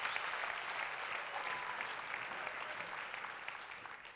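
Audience applauding, a dense patter of many hands clapping that fades away toward the end.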